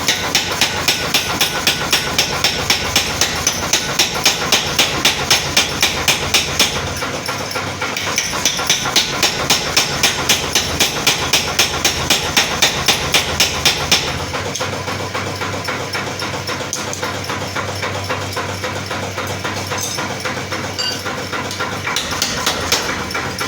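Power hammer striking hot steel while forging a small axe, about four blows a second. The blows come in two runs, with a short break about 7 seconds in, and stop about 14 seconds in, leaving a steadier machine sound without blows.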